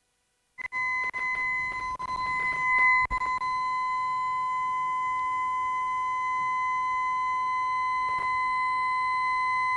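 Recording of an organ pipe sounding one steady note, played back over the room's speakers. The pipe is winded through an attenuator fitted to damp flutter, and the tone is cleaner, with little wobble. The note starts about half a second in and holds level.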